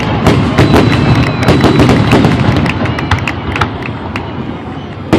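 Fireworks display: aerial shells bursting in a rapid, crackling series of bangs that thins out and gets quieter over the last couple of seconds, with one sharp bang right at the end.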